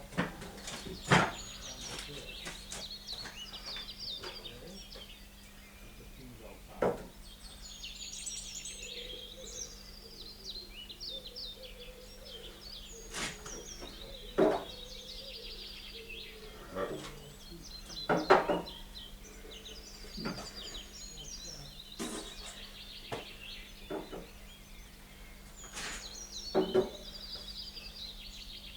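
Birds chirping steadily, with about ten irregular knocks and clatters from objects being handled, over a steady low hum.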